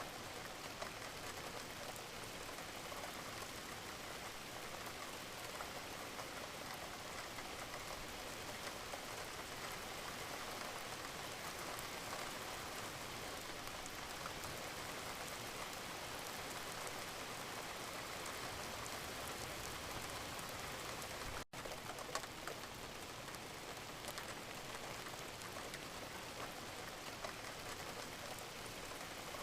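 Steady rain falling: an even hiss with a fine patter of drops. There is one momentary break in the sound about two-thirds of the way through.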